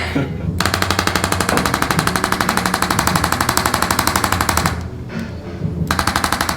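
A motorised percussive device pulsing rapidly and evenly, about a dozen strikes a second over a steady low hum. It stops just before five seconds in and starts again about a second later.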